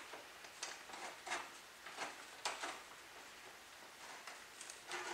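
Faint, irregular scrapes and light clicks of a metal nut being turned by hand inside the end of a PVC pipe.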